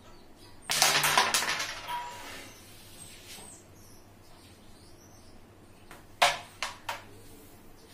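A carrom striker flicked across the wooden board, cracking into the carrom men and setting off a quick, fading rattle of clicks as the pieces knock about. A little after six seconds in, three sharp clicks as the striker is set back down on the board.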